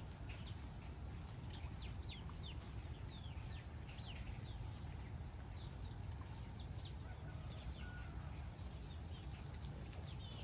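Birds chirping: many short, falling calls scattered throughout, over a steady low rumble.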